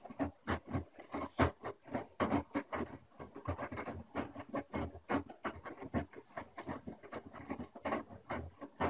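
Washing machine drum turning, with an irregular patter of soft knocks, a few per second.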